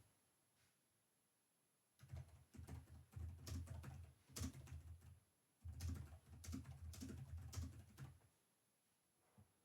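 Typing on a computer keyboard in two quick runs of keystrokes, each a few seconds long with a brief pause between them, then a single key click near the end.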